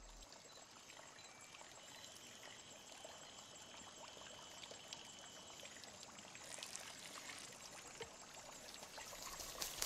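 Faint trickle of water pouring from a bamboo garden fountain into a basin, with small drips, slowly growing louder.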